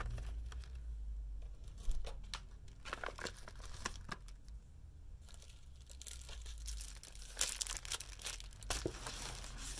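Plastic and paper gift packaging crinkling and rustling as it is handled, in scattered crackles that come thicker over the last few seconds.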